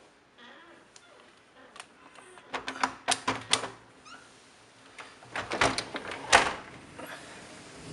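Window frame being handled: two clusters of sharp knocks and rattles, the first about two and a half seconds in, the second about five seconds in.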